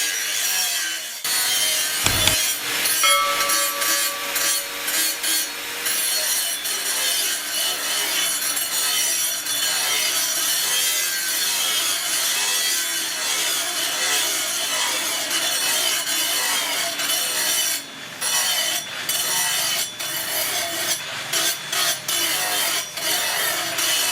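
Steady abrasive scraping and rubbing from hand work on the cleaver, with a few brief breaks in the strokes near the end.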